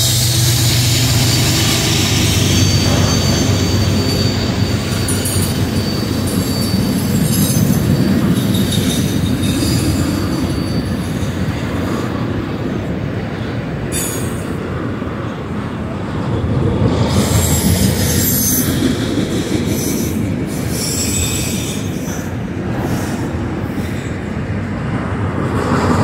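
A train's cars rolling past with a steady rumble of wheels on rail and high-pitched wheel squeal that comes and goes.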